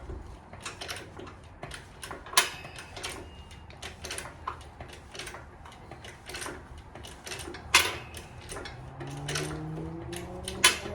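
Motorcycle lift jack being worked by hand to raise the bike: a run of irregular metallic clicks and knocks, with two louder clanks about two and a half and eight seconds in. A low hum rises in pitch near the end.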